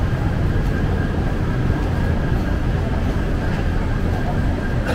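Steady low rumble of passing vehicles, with a faint steady high tone above it.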